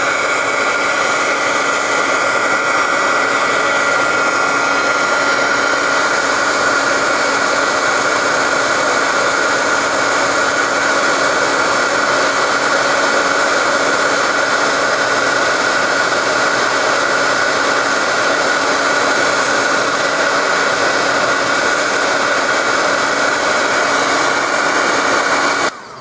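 Embossing heat gun running steadily, a loud rush of hot air with a constant whine over it, melting green embossing powder on a stamped card. It switches off at the very end.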